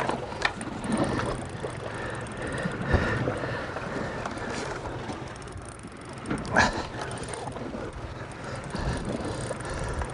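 Wind buffeting the microphone over sea and boat noise, with a few sharp knocks, the loudest about six and a half seconds in.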